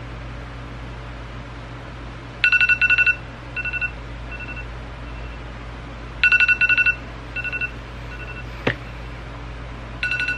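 Smartphone alarm beeping: a quick run of sharp, high beeps, then a few softer, spaced-out beeps, the pattern repeating about every four seconds. It repeats three times over a steady low hum.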